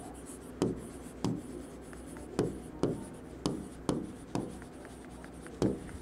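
A pen or stylus writing on an interactive display screen: a run of short, irregular taps, about two a second, as the letters are written.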